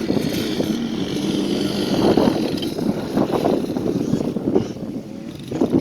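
Off-road vehicle engine running: a steady engine tone in the first second gives way to rough, uneven engine and ride noise.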